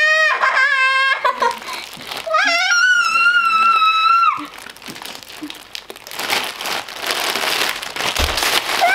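A girl's high-pitched, drawn-out whining cries, twice in the first half. Then a stretch of plastic packaging crinkling as bagged squishy toys are rummaged through.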